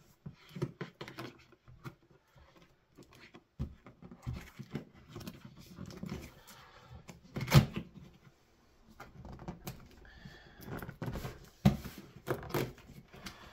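Large cardboard box being handled and pried open with a metal teaspoon: scattered light taps, scrapes and rustles of cardboard, with a sharper knock about halfway through and another near the end.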